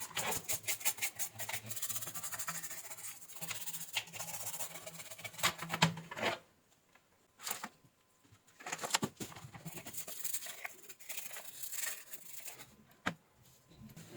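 Rapid rubbing and scraping strokes against the amplifier's circuit board. The strokes come in fast runs, stop for about two seconds near the middle, and then go on again.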